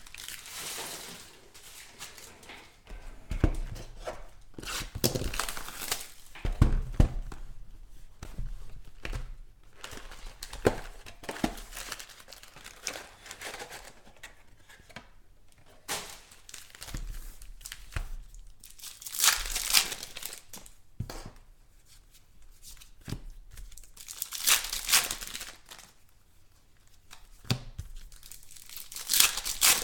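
Trading card pack wrappers being torn open and crinkled by hand, in short irregular rips with light clicks and taps of cards being handled in between. The loudest tearing bursts come about two-thirds of the way in and near the end.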